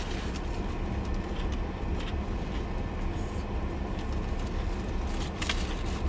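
Steady low rumble of an idling car heard from inside the cabin, with a few faint crackles of chewing a crispy fried chicken sandwich, clearest about five and a half seconds in.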